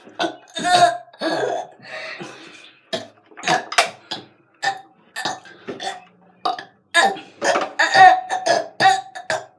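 A person forcing out a rapid string of short burps, about two a second, some strained and gulping enough to sound like choking.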